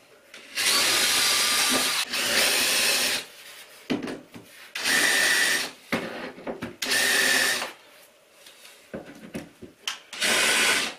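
Cordless drill running in five bursts of about a second each, with a faint motor whine, boring screw holes into an MDF board. Small handling clicks fall in the gaps between bursts.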